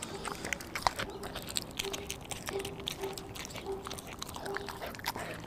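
Pit bull–German shepherd mix dog chewing a raw chicken drumstick: irregular wet crunches and clicks of teeth on meat and bone.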